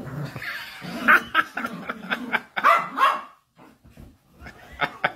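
A dog barking: a quick run of short barks about a second in, a pause, then a few more near the end.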